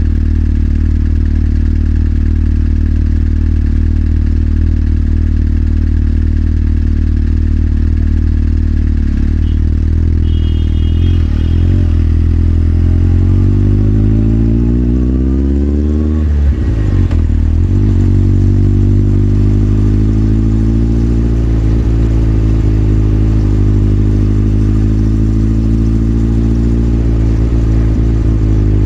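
Motorcycle engine running steadily at low revs, then revving up with a rising note for several seconds from about a third of the way in. The note drops sharply about halfway through, then settles back to a steady run.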